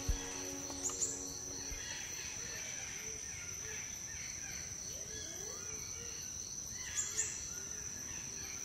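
Tropical forest ambience: a steady high-pitched insect drone with many short chirping calls scattered through it, and two sharper calls about a second in and about seven seconds in. Soft background music fades out in the first second or two.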